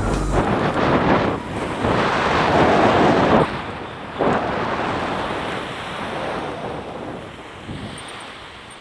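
Wind buffeting the microphone in gusts, swelling for a couple of seconds, dropping off suddenly about three and a half seconds in, gusting again and then fading.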